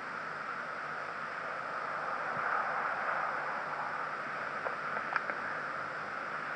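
Steady hiss of a recording's background noise during a pause in speech, with a few faint clicks about five seconds in.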